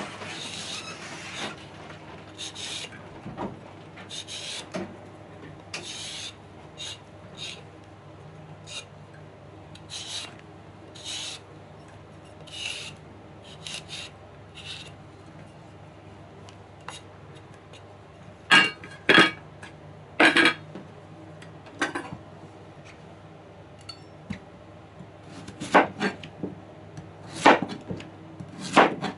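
Vegetable peeler scraping strips of skin off a daikon radish in quick irregular strokes. From about two-thirds of the way in, a kitchen knife cuts through the peeled daikon, knocking sharply on a plastic cutting board several times.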